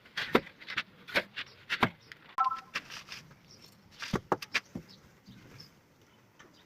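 A run of sharp, irregular knocks and taps, a few a second, thinning out after about five seconds, with a short beeping tone about two and a half seconds in.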